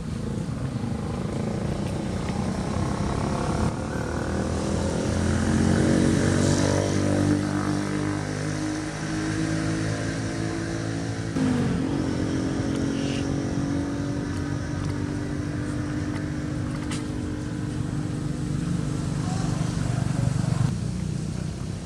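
A motor vehicle engine running, its pitch climbing gradually and then changing sharply about halfway through.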